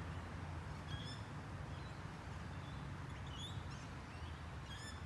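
Birds chirping in a few short, scattered high calls, faint, over a low steady rumble.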